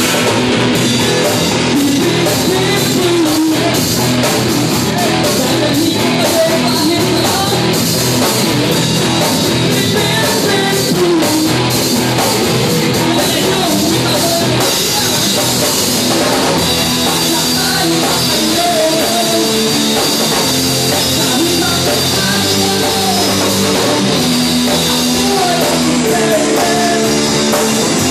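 Rock band playing a loud song, with drum kit, electric guitar and a singer.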